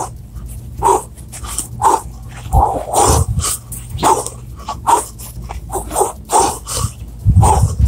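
Repeated short barks, coming every half second to a second and sometimes in quick pairs, over a low steady hum.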